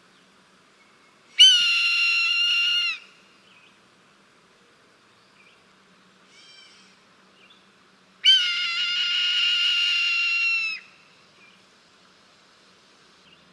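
Red-tailed hawk calling: two long, steady-pitched screams, the second longer at about two and a half seconds, each starting sharply and dipping slightly at the end, with a short faint call between them.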